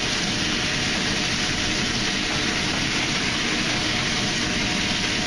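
Short ribs sizzling as they sear in a hot sauté pan, over the steady rush of a gas range with several burners lit.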